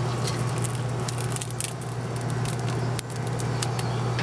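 Pre-cooked spaghetti noodles sizzling and crackling on an oiled grill grate, with many small irregular pops over a steady low hum.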